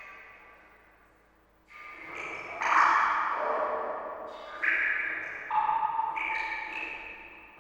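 Water drops falling one by one into water, each a ringing plink at its own pitch with a slowly fading, echoing tail; about six drops at uneven intervals after a quiet first second and a half.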